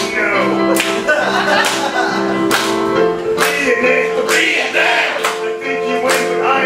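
Live band playing a song with singing over guitar, with a steady beat struck a little more than once a second.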